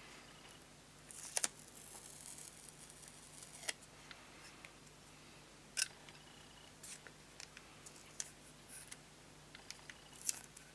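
Scattered sharp clicks and light taps of small metal lighter parts being handled, about ten in all. A brief scraping hiss comes about a second in.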